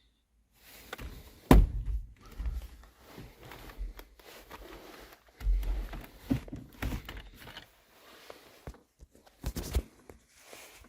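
A series of irregular knocks and thuds, the sharpest and loudest about one and a half seconds in, with more clusters around six and ten seconds.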